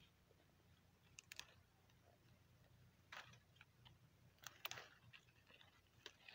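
Faint crackling and rustling of dry bean plants being grabbed and snapped by hand, in about four short crackles spread a second or more apart.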